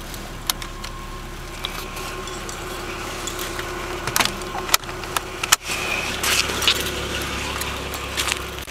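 1989 Toyota Supra Turbo's 7M-GTE inline-six running, with a steady whine over the engine note and scattered clicks and jangling. The whine is the squeal the owner has been chasing, which he has ruled out as belts. About halfway through the sound briefly drops out, and the low engine hum then comes back stronger.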